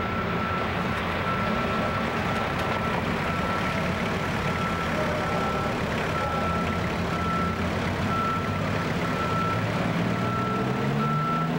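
A reversing alarm beeping in short, uneven pulses over the steady idle of an alcohol-burning super stock pulling tractor's engine. Near the end the engine note starts to rise as it revs up.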